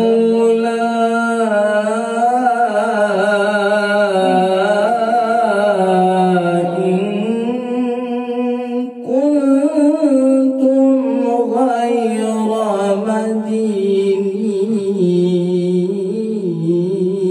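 A man's solo melodic Quran recitation (tilawah), sung into a handheld microphone: long held notes with wavering, ornamented turns. There is a short break for breath about eight and a half seconds in, then a second long phrase.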